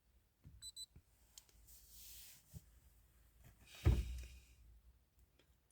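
Mostly quiet with faint handling noises: a brief double electronic beep about half a second in, and a soft thump with a short rush of noise about four seconds in.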